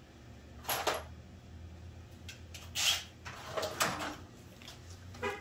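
A few separate clunks and rattles of metal tools and parts being handled, the loudest about three seconds in, over a faint steady low hum.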